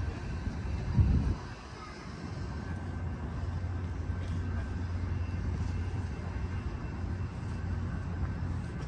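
Steady low drone of the Rail Runner's EMD diesel locomotive, an MP36PH-3C, running as the commuter train pulls away. A short, loud low thump comes about a second in.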